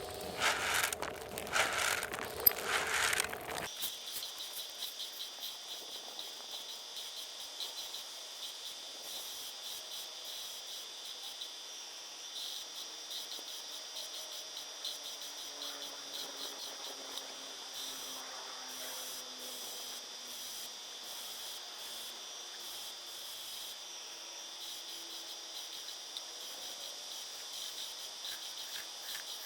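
A few seconds of scratchy rubbing that cuts off abruptly, then a steady high-pitched chorus of calling insects, like crickets, that continues unbroken.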